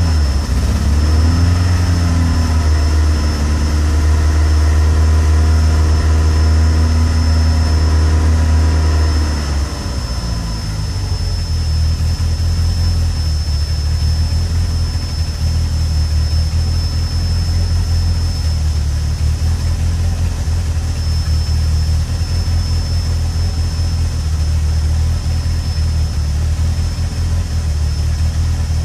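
Peugeot 106 GTi's 1.6-litre 16-valve four-cylinder engine idling, settling from a steady raised idle to a lower, rough and uneven idle about ten seconds in. The uneven running is typical of the cold-engine misfire this car suffers from.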